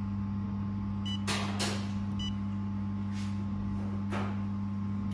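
Steady low electrical hum of a running handheld fiber laser welding machine, with two short high electronic beeps about one and two seconds in, and a few soft brief rustles.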